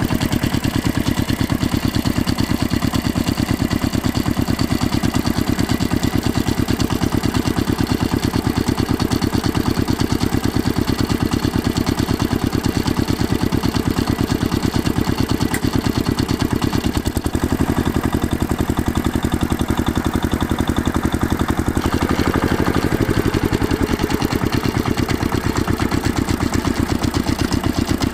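Steady engine-like running sound with a fast, even pulse, with a brief falling tone about three quarters of the way through.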